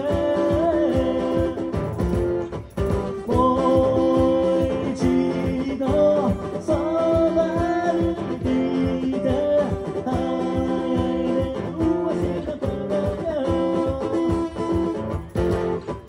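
Live acoustic guitar playing chords, with a man's voice carrying the melody over it.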